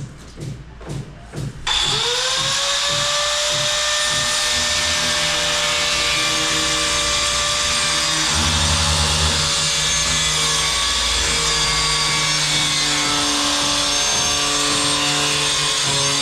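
A power tool gives a few short bursts, then spins up about two seconds in and runs steadily at full speed.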